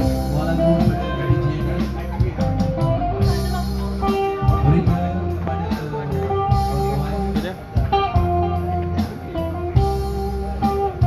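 Live band music played through a small PA: a guitar-led tune over a strong bass line and a steady beat.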